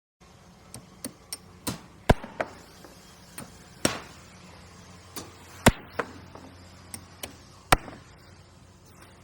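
Construction-site hammering: about a dozen sharp, irregularly spaced hammer blows over a low steady hum.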